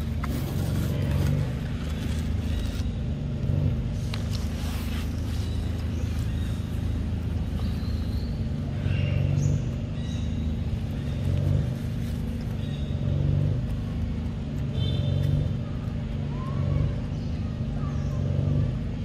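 A motor running steadily with a low hum that swells and eases every couple of seconds, with a few faint high chirps over it.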